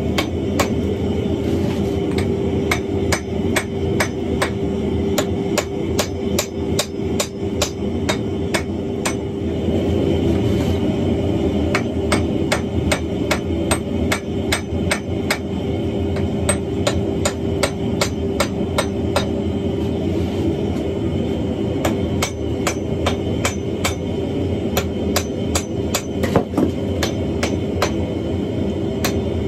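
Hand hammer striking red-hot wrought iron on an anvil: a long run of quick blows, about two to three a second, with a couple of short pauses, over a steady low drone.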